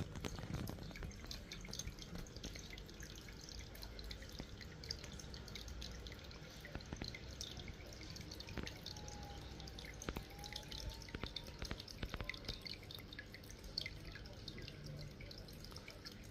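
Aquarium filter outflow trickling and splashing into the tank water: a steady patter of irregular drips.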